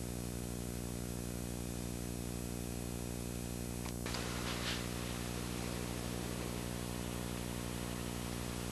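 Steady electrical mains hum with hiss on the sound track, and a brief faint noise about four seconds in.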